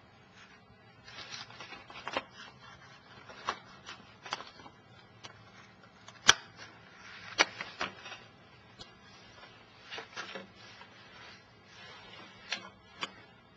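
Paper rustling and a plastic clip-on pen receiver being handled and clipped onto the sheet's edge, with a run of small clicks and taps. The sharpest click comes about six seconds in, with a few more near the end.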